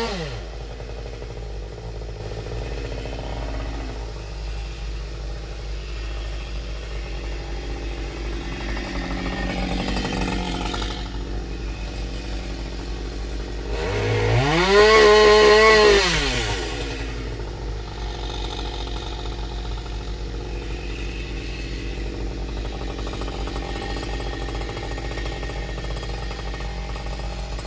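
Two-stroke chainsaw idling, its revs falling away at the start. About halfway through it is throttled up once, held high for about two seconds, then let back down to idle.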